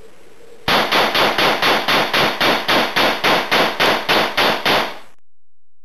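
VHS-D1S bullpup carbine in .223 Rem, modified for film use, firing blanks in a rapid string of about eighteen shots, roughly four a second, for some four seconds, then cutting off suddenly.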